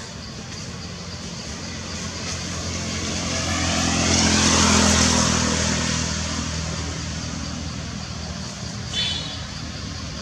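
A motor vehicle passing on a nearby road: its engine grows louder to a peak about halfway through, then fades away.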